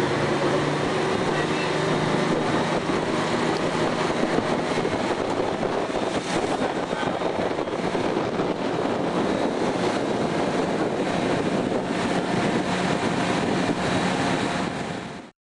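Motor boat's engine running steadily, with wind and water rush on the microphone; it cuts off abruptly near the end.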